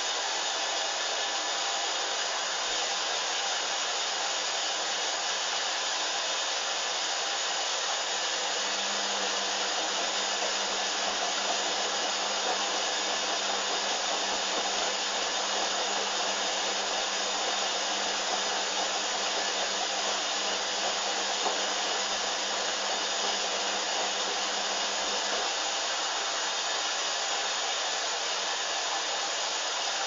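Hoover front-loading washing machine in its main wash, the drum tumbling a sudsy load with a steady rushing noise of motor and water. A low hum joins in about nine seconds in and drops away about twenty-five seconds in.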